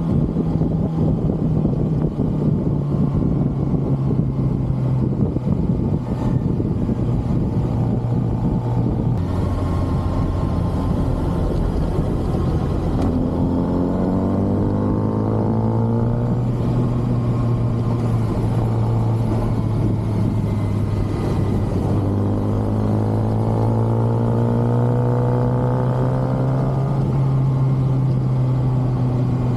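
Kawasaki ZX-6R's inline-four engine on its stock exhaust while riding, over a steady rush of wind noise. Its note steps lower in the first third, then climbs in pitch twice as it revs up.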